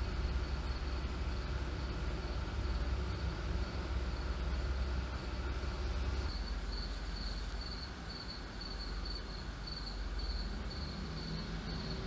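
A cricket chirping: a thin, high trill that turns into short chirps about twice a second from about halfway, over a low steady rumble.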